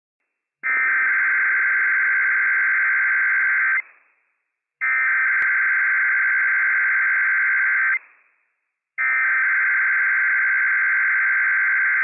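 Emergency Alert System SAME header from NOAA Weather Radio: three identical bursts of harsh digital data tones, each about three seconds long with a short gap between them. The bursts are the coded alert header, here for a Required Weekly Test.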